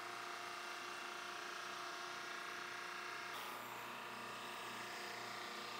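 Drum sander running: a faint, steady machine hum with several even tones under a light hiss.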